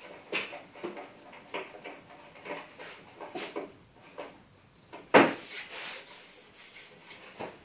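Irregular knocks and rubbing of wooden pieces being handled on a workbench, with one sharp, louder knock about five seconds in.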